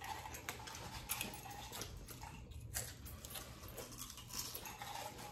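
Faint eating sounds: quiet chewing and mouth noises with a few small clicks, over a low steady hum.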